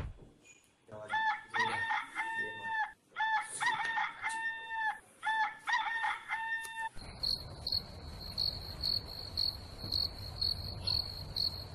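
A rooster crowing three times, then crickets chirping in a steady pulse about twice a second over a low hiss.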